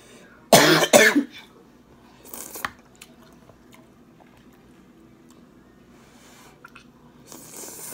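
A woman coughing twice in quick succession about half a second in, then quieter eating sounds.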